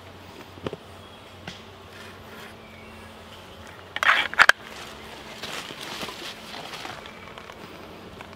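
A fixed-blade bushcraft knife handled after trimming a twine lashing: a couple of faint clicks, then about four seconds in a short, loud scraping rasp as the blade goes into its sheath, followed by softer rustling of gear and clothing.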